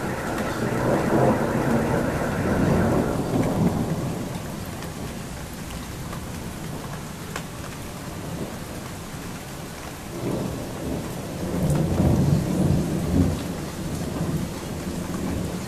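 Steady rain with two long rolls of thunder: one rumbling through the first few seconds, and another building from about ten seconds in.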